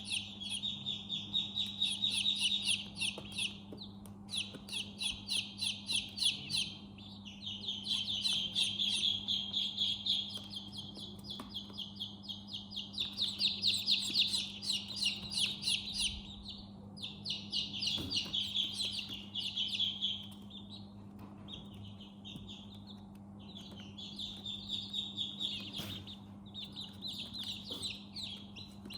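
Many baby chicks peeping, rapid high-pitched cheeps in dense bouts of a few seconds with short lulls between them. A steady low hum runs underneath.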